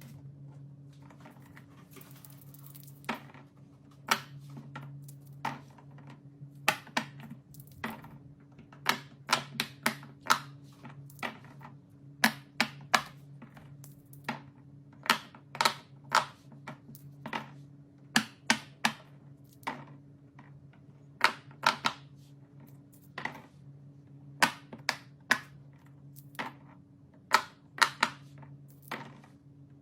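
Silicone pop-it fidget toy bubbles being pressed: a long run of sharp, irregular pops, often in quick clusters, over a steady low hum.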